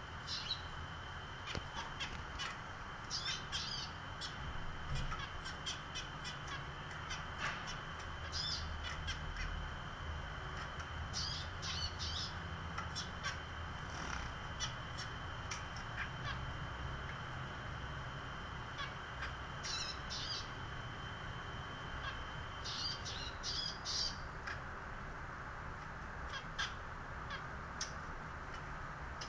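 Zebra finches calling in short bursts of quick, high beeping calls that come in clusters several times, over a scatter of small sharp clicks and taps.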